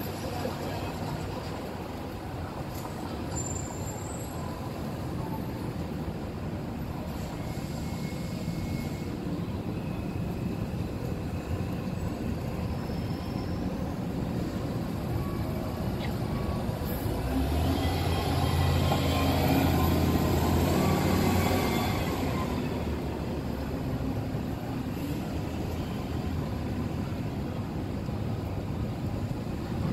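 Downtown street traffic, with a large vehicle passing close by a little past the middle: a low rumble that swells for about five seconds and fades away.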